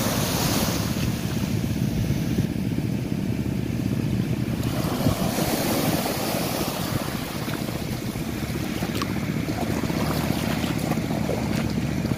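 Small waves washing and breaking over a sandy shoreline, with wind rumbling on the microphone.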